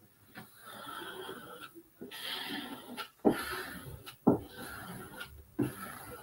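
Small plastic squeegee rubbed in several strokes over glued decoupage paper on window glass, smoothing it down: a dry scraping, with a few sharp knocks between strokes.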